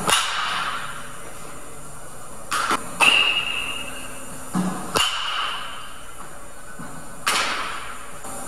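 Baseball bat hitting pitched balls: sharp cracks a couple of seconds apart, two of them followed by a short high ring, and a dull thump just before most hits.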